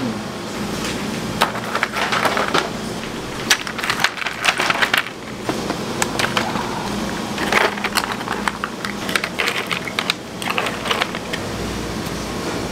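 Bursts of rapid clicking and clattering, hard objects knocking together, with a steady low hum underneath.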